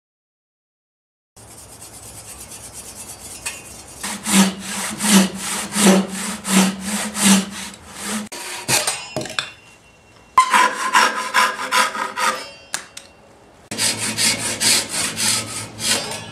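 Handsaw cutting through a bark-covered log section in steady back-and-forth strokes, about one and a half a second, in three runs with short pauses between. It starts about a second and a half in, lightly at first.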